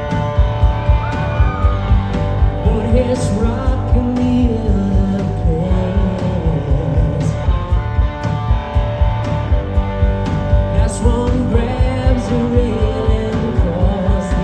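Live rock band playing: electric guitar, electric bass and drums keeping a steady beat, with a man singing lead over it.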